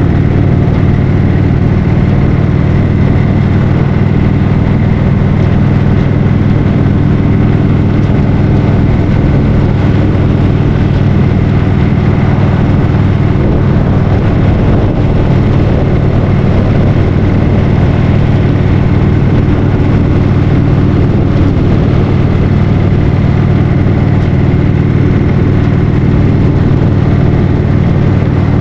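2015 Indian Roadmaster's Thunder Stroke 111 V-twin engine running steadily while the motorcycle cruises along the road.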